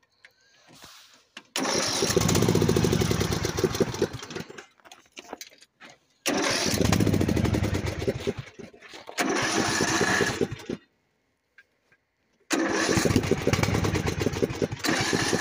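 Starter cranking a cold riding lawnmower engine in several tries of a few seconds each, with short pauses between, and the engine not catching. It is too cold to start.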